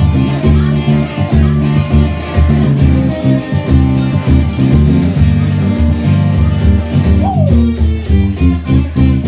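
Live band playing an instrumental passage: guitar over bass and drums with a steady beat, with one bent guitar note about seven seconds in.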